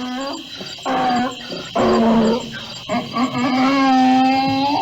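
Several drawn-out animal calls, the last held about two seconds, over a steady background of chirping crickets.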